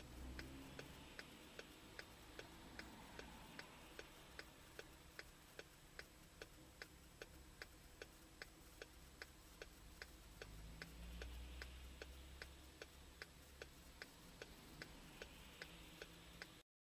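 Faint, even ticking, about two and a half ticks a second, over near silence, with a weak low rumble around eleven seconds in.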